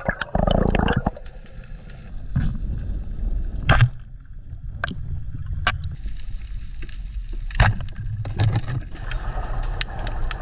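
Underwater sound from a diver's camera: rushing water and bubbles in the first second, then a steady low rumble of water movement broken by a few sharp clicks and knocks.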